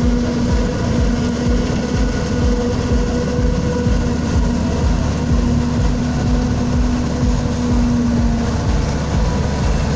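A tractor and a self-propelled forage harvester chopping maize run together at close range, a steady heavy engine drone with a constant hum over it.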